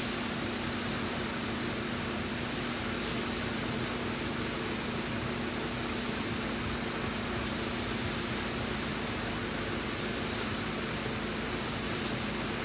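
Steady, even hiss with a constant low hum: unchanging shop background noise. The hand wet-sanding strokes do not stand out from it.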